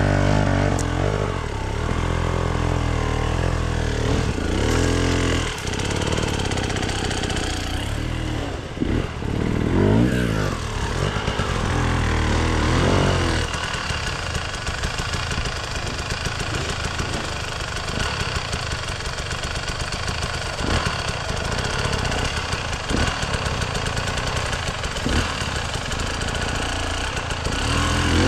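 Off-road enduro motorcycle engine revving in rising and falling bursts as it is ridden over a hard enduro trail. About halfway through, the revs drop and it runs lower and rougher.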